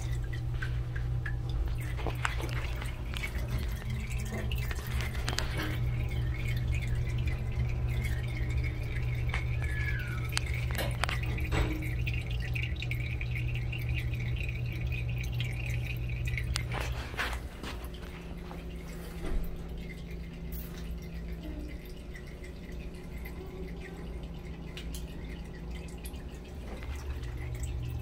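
Hydraulic elevator machinery running: a steady deep electrical hum with a fainter whine above it and scattered light clicks. About seventeen seconds in, the hum and whine drop away, leaving a quieter, lower hum.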